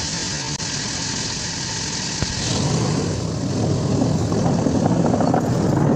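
Hitachi Zaxis 210-5G excavator's diesel engine running steadily; about two and a half seconds in it gets louder and rougher, with a single click just before.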